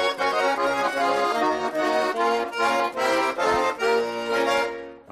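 Accordion playing a lively folk tune in quick rhythmic chords, fading away near the end.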